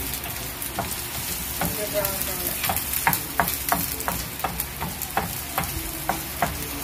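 Garlic and onion sizzling in a frying pan while a wooden spatula stirs them, scraping and tapping against the pan about twice a second over the steady hiss of the frying.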